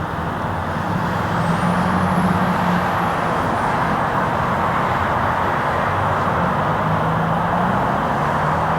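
Steady engine noise: a continuous rushing sound with a low hum that comes and goes.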